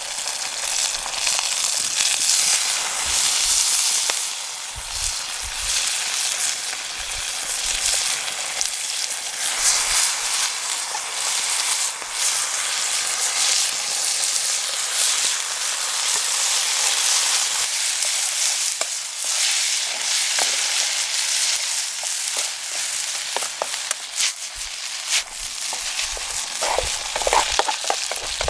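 Food sizzling in hot oil in a pan over a campfire, a steady hiss with scattered spits and crackles, and a few short clinks near the end.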